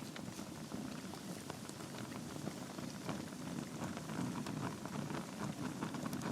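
Wood logs burning in a fireplace: a steady low rush of flame with many small, sharp crackles and pops, several each second.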